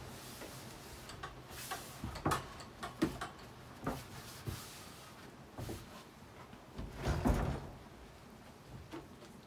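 Handling noise at a workbench: scattered light knocks and clatter of things being picked up and set down, with a heavier low thump about seven seconds in.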